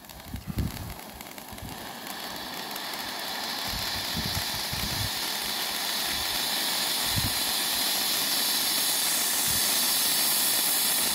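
A Vulcan Fire Sphinx fountain firework (a ground 'volcano') spraying sparks with a steady, hissing rush. The hiss swells over the first couple of seconds and keeps growing slowly louder as the fountain builds.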